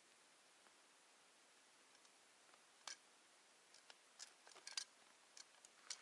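Near silence, with a few faint sharp clicks, one about three seconds in and several more near the end: small handling noises of a marten trap being worked by hand on a fallen log.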